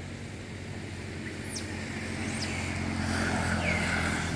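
A motor vehicle's engine running on a nearby road, growing steadily louder as it approaches.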